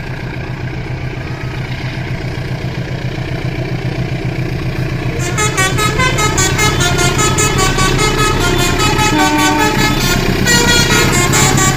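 Low steady rumble of a train, then from about five seconds in a multi-tone 'telolet' horn playing a quick melody of short stepping notes over it.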